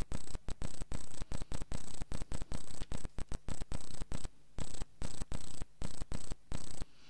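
Crackling static from the microphone and sound system: hum and hiss cutting in and out in short, irregular bursts, several times a second.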